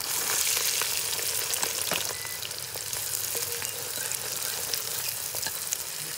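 Chopped onions and vegetables sizzling in hot oil in a large metal pot as they are stirred with a metal ladle, with a few light clicks of the ladle against the pot.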